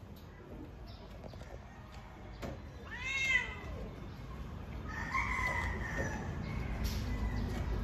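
Cat in heat yowling during mating: a short meow that rises and falls about three seconds in, then a longer, steadier yowl of about a second from about five seconds in.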